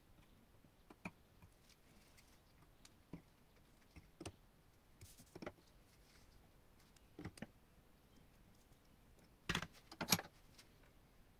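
Small metal parts clicking and tapping against a steel bench vise as a thin rod and its fitted sleeve are handled: sparse light clicks, then two louder knocks about half a second apart near the end.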